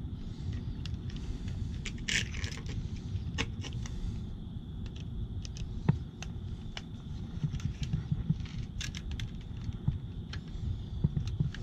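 Scattered light clicks and scrapes of hands working wiring onto a GFCI outlet's terminals, over a steady low rumble.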